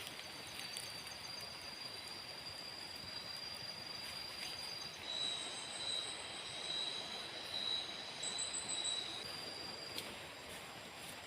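Forest insects calling in high, steady trills over a constant hiss. One note stops about five seconds in, and a lower one takes over with a pulsing higher note above it, ending about nine seconds in.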